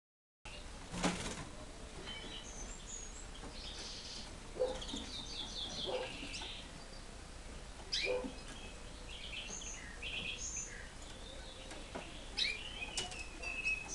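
Small cage birds chirping in short, scattered calls, with a few brief flutters of wings in the cages.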